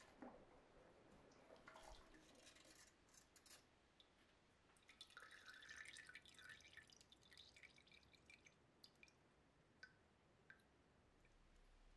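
Faint drips of quenching oil falling from a freshly oil-hardened hammer head into a metal pail, with a spell of faint crackling midway and a few single drips near the end.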